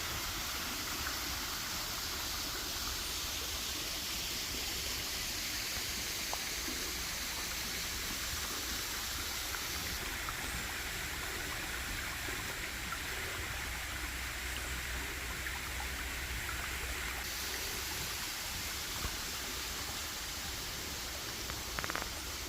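Roark Creek's waterfall and stream rushing steadily.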